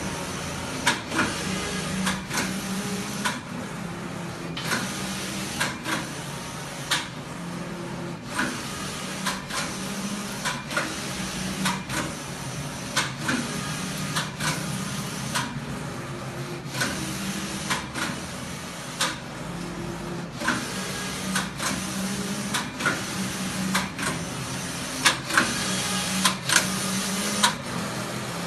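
JP-712 collar knitting machine running: a steady hum under a busy, irregular clatter of sharp clicks, with a few short lulls.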